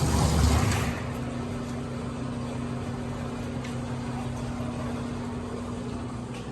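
Electric garage door opener running as the door travels: a steady motor hum with a low constant tone, louder and rattling for about the first second, then even, and it cuts off at the very end.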